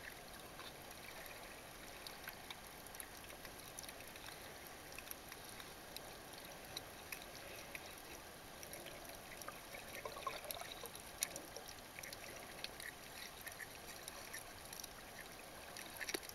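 Underwater ambience picked up by a submerged camera: a faint, steady water hiss with many small scattered crackling clicks.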